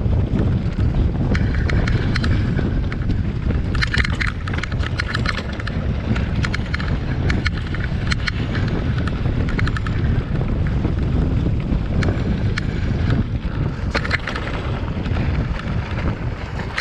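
Wind buffeting the microphone as a mountain bike rolls down a rough stony track, with the tyres crunching over loose stones and the bike rattling over the bumps.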